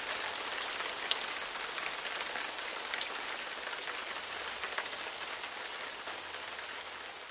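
Steady rain falling on a surface: an even hiss with scattered drop ticks, beginning to fade out near the end.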